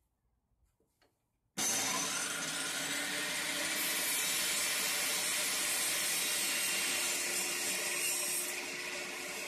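Steady rushing tyre and wind noise of a car on the road, cutting in suddenly about a second and a half in and easing slightly near the end.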